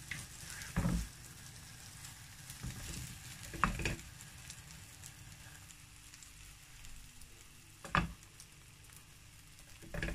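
Egg-soaked bread slices frying in butter in a nonstick pan, a steady soft sizzle. Three short knocks stand out over it, about a second in, near four seconds and near eight seconds.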